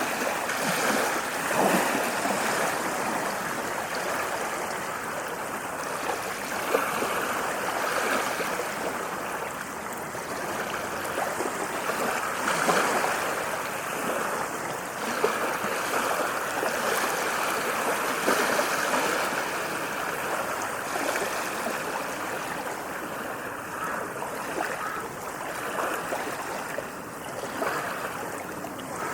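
Small waves washing onto a sandy beach: a continuous rush of surf that swells and eases every few seconds.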